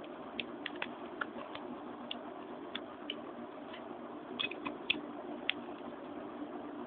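Light clicks and taps from plastic and metal Beyblade parts being handled and fitted together, coming irregularly over a steady faint hiss, with a small cluster of clicks a little past the middle.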